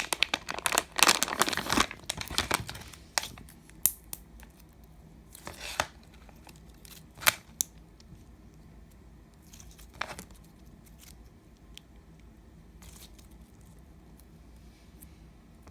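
Slime being squished and stretched by hand: dense crackling and popping for the first few seconds, then only occasional single pops and clicks.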